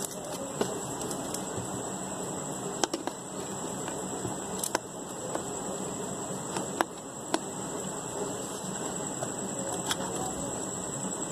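A few irregular light plastic clicks and taps as an AA battery is fitted into the battery holder of a quartz wall-clock movement, over a steady background hiss.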